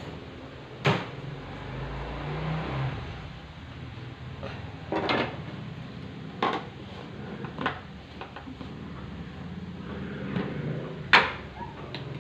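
A spoon knocking against dishes as sugar is spooned in for the lemonade: several sharp, scattered clinks, the loudest near the end.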